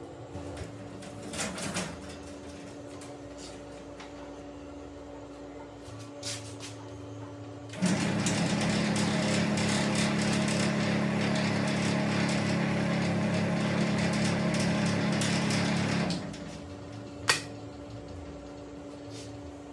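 An electric motor switched on for about eight seconds, running with a steady buzzing rattle, then switched off. Scattered clicks and knocks come before and after it.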